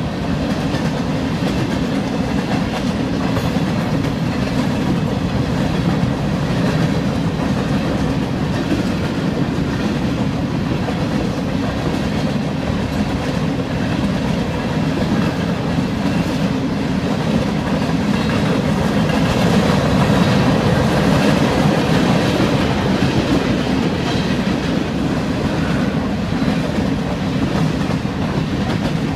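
Freight train cars rolling past on the rails: a steady, loud, low-pitched rolling noise that swells slightly about two-thirds of the way through, with no horn sounding.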